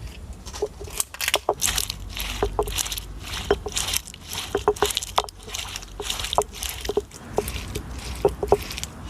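Irregular crunching and scraping of food being crushed by hand, with many sharp clicks and short squeaky blips.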